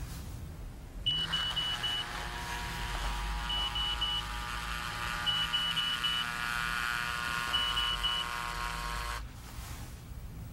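Electronic bedside alarm beeping in repeated groups of three or four quick, high beeps at one pitch. Under the beeps there is a steady layer of tones that cuts off suddenly about nine seconds in.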